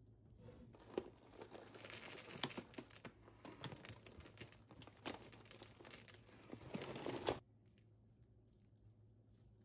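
Packaging crinkling and tearing, handled continuously with a few sharper crackles, then stopping abruptly about seven seconds in.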